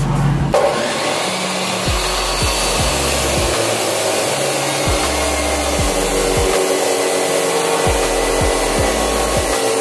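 Abrasive chop saw running and cutting through steel rebar: a steady, loud grinding whir of the cut-off disc biting the bar, beginning about half a second in.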